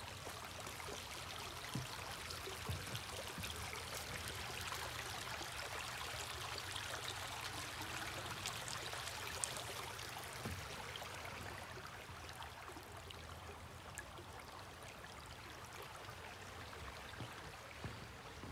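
A small creek trickling and rushing, a steady hiss that grows louder towards the middle and then slowly fades, with a few faint knocks.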